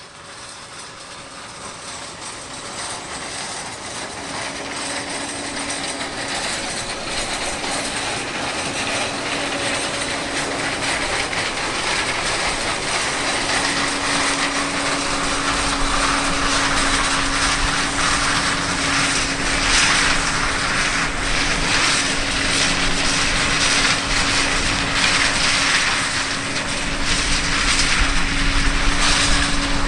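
John Deere 9610 Maximizer combine running in a cornfield while harvesting with its corn head: a dense mechanical rush with a steady hum and a low engine rumble. It grows steadily louder as the machine comes closer.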